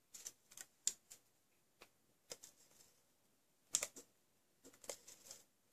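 Scattered light taps and clicks of paper and cardstock being handled and pressed down onto a card, with a small cluster of taps about four seconds in.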